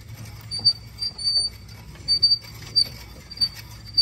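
Crank tongue jack on a pop-up camper being wound down to lower the tongue onto the tractor's hitch ball. It gives short, high squeaks, roughly two a second, with faint mechanical clicks.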